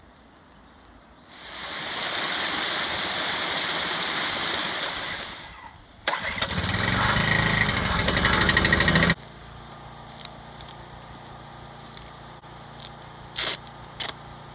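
A rushing hiss for about four seconds, then a small portable generator's engine starting about six seconds in and running loudly for about three seconds before stopping abruptly. A steady low hum and a few faint clicks follow.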